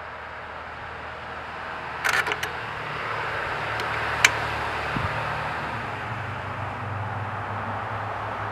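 Sharp metal clicks from a hitch-mount bike rack's bracket and hardware being handled: a quick rattle of several clicks about two seconds in, then a single sharp click about two seconds later and a softer knock. Under them runs a steady hiss and low hum that grows a little louder partway through.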